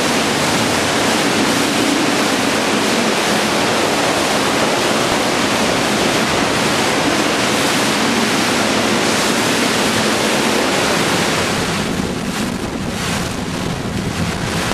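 Hurricane-force wind rushing through trees and palms, a loud steady rushing noise. About twelve seconds in it eases slightly into uneven gusts buffeting the microphone.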